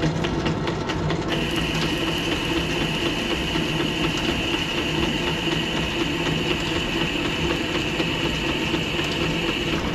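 Wade 8A manual lathe running under power feed on the half nut, its threading tool cutting an internal thread in a steel back plate: a steady geared machine hum. A steady high tone joins about a second in and stops just before the end; on this lathe the change in sound marks the end of the cut and the moment to disengage the half nut.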